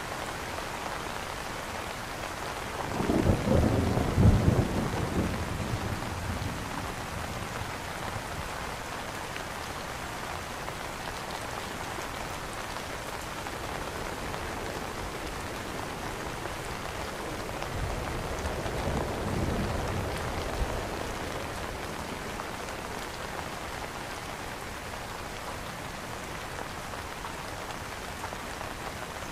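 Steady rain falling on an umbrella canopy. A roll of thunder comes about three seconds in, the loudest sound here, and a fainter rumble of thunder follows about eighteen seconds in.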